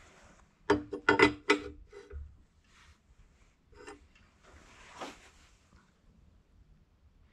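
A wrench clinking against the threaded rod and nut of a differential case spreader, several sharp metallic clacks with a short ring about a second in, then a softer scraping rub around five seconds in, as the spreader is adjusted to stretch the Dana 30 housing.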